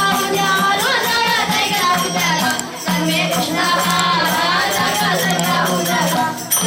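Young Vedic students singing a Hindu devotional bhajan over a steady low drone, with jingling percussion.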